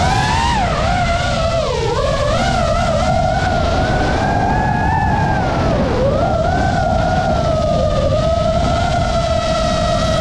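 FPV racing quadcopter's brushless motors whining, the pitch rising and falling with the throttle and dipping sharply about two seconds in and again near six seconds, over a steady rush of wind on the onboard microphone.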